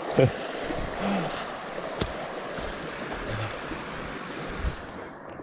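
Runoff water rushing down a rain-swollen canyon creek, a steady hiss, with a sharp click about two seconds in.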